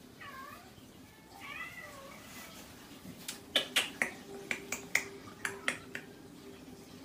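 A small kitten mewing: two or three short, high mews in the first couple of seconds. Then a run of about ten sharp clicks over the next three seconds, louder than the mews.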